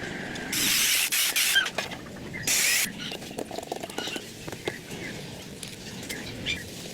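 Two bursts of hissing spray, the first about a second long, the second shorter, about two seconds in. Small clicks and taps sound around them.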